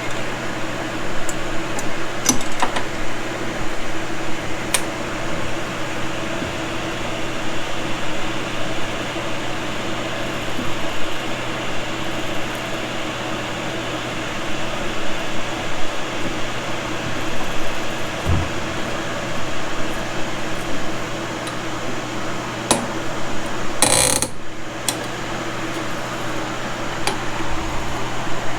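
Steady mechanical hum, like a fan or air conditioner running, with a low drone throughout. Scattered light clicks of hand-work on metal parts are heard, and a brief louder clatter comes about 24 seconds in.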